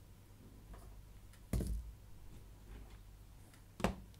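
Two light knocks, about a second and a half in and near the end, as small battery adapter pieces are set down on a cardboard-covered table; faint room tone between them.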